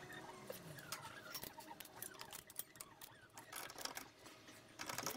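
Faint, irregular clicks and taps of hand tools and metal parts while a water pump is being fitted and bolted in a cramped engine bay.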